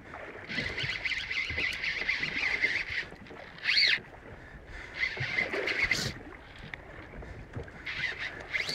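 Saltwater fly reel's drag buzzing in several bursts as a hooked kahawai runs and pulls line off, with a short whine sweeping up and down in pitch about four seconds in and again near the end.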